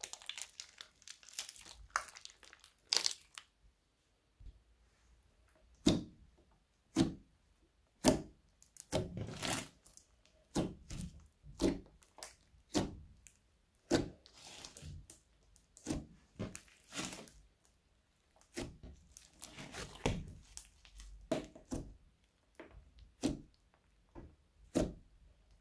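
Thick pink slime with small beads being squeezed and poked with fingers: a run of separate short squishes and pops, roughly one a second, with crackling in the first few seconds.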